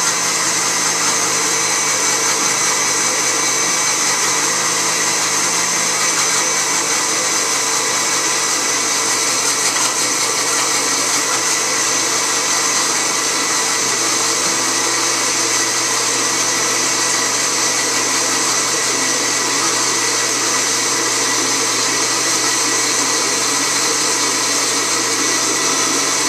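Countertop blender motor running steadily on its lowest speed, mixing mayonnaise as oil is slowly drizzled in to emulsify.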